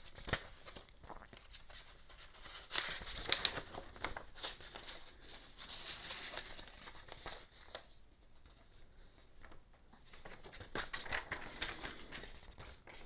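Paper rustling and crinkling as a printed instruction manual and leaflet are handled and their pages turned, coming in spells with a quieter pause about eight seconds in.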